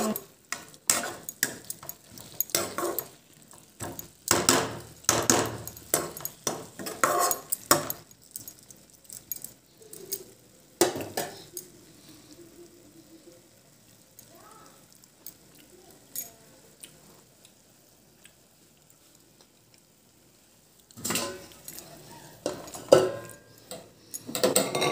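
Metal ladle scraping and knocking against a kadai while cooked greens are stirred, a quick run of clinks and scrapes for the first several seconds. Then a quiet stretch, and more clatter of pans and ladle on a steel stovetop near the end.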